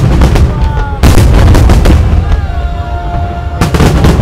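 Aerial fireworks bursting in quick succession: loud booms and dense crackling, with a heavy run of bursts starting about a second in and another near the end. Thin gliding whistle tones sound between the bursts.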